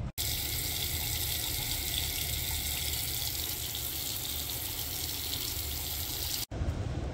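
Restroom sink faucet running a steady stream into the basin, an even hiss, left running to warm the water up. It cuts off suddenly about six and a half seconds in.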